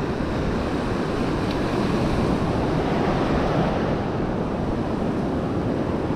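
Ocean surf breaking and washing up a sandy beach in a steady rush, with wind rumbling on the microphone.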